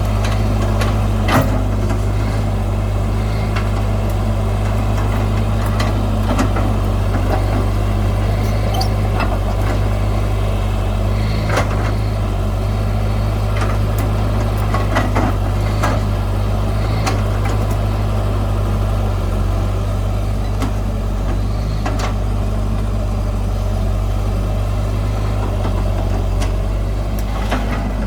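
Heavy diesel earthmoving machinery running steadily at a low, even speed, with sharp metallic clanks and knocks scattered through it.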